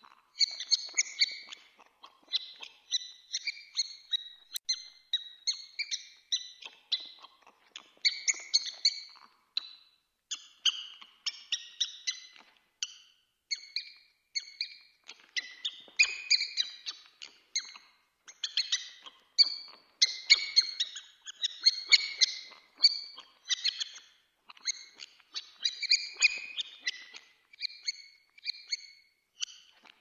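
Mouse squeaking: quick runs of short, high-pitched squeaks, one after another with brief pauses between.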